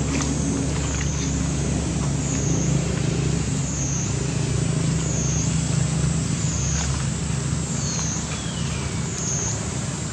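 Steady outdoor background with a continuous low, engine-like rumble, like a motor vehicle running close by, under a high drone that dips and swells about every second and a half.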